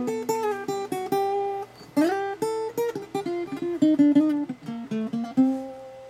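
Acoustic guitar played solo: a picked single-note melody that steps mostly downward, with a fuller strummed chord about two seconds in and another near the end, the last note left ringing out.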